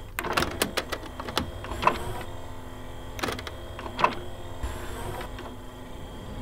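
Jukebox record-changing mechanism at work: a motor whirring steadily under a run of metallic clicks and clacks, quick in the first second or so, with the loudest clacks about two and four seconds in.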